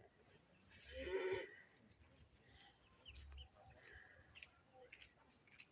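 A single short animal call, about a second in, followed by faint bird chirps.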